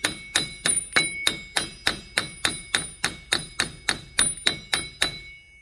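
Brass hammer striking the threaded end of a Chevrolet Silverado's front axle shaft in quick, even blows, about three a second, each with a metallic ring. The axle is stuck in the hub and is being driven inward through it. The blows stop shortly before the end.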